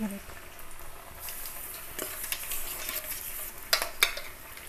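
Battered raw-banana pieces deep-frying in hot mustard oil in a kadhai, a steady sizzle that grows louder about a second in. Near the end come two sharp clicks of a utensil against the steel batter bowl.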